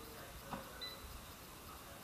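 Chiwawa CAF-606 air fryer's drawer basket pushed shut with a light clunk about half a second in, followed by a short high beep from the fryer.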